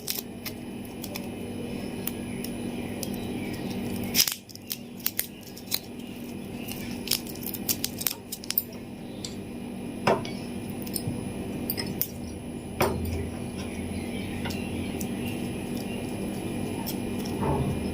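Small hard objects being handled, with scattered sharp clicks and taps over a steady low hum.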